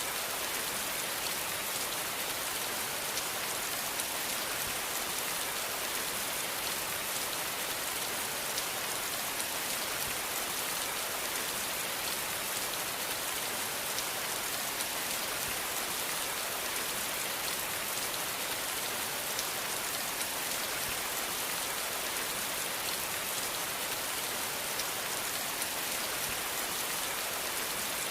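Steady rain falling, a continuous even hiss with faint individual drop ticks.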